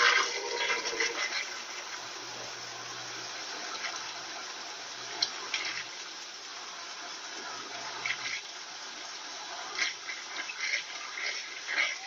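Consul Maré CWL75 top-loading washing machine in its spin-and-drain stage: a steady rush of water draining from the spinning tub, with a faint low hum through parts of the first two-thirds.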